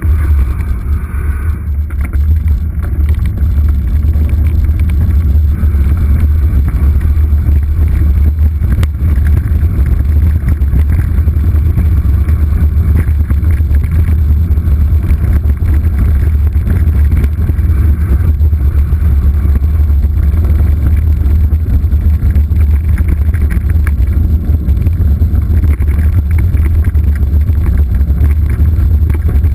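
Steady low rumble of wind buffeting a GoPro's microphone during a bicycle descent at speed, over the noise of the bike's tyres on the trail.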